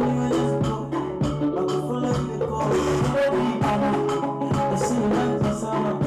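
Recorded music played loud through an LG OM5540 Bluetooth party speaker with its bass blaster setting on: a steady beat with drums under sustained instrument notes.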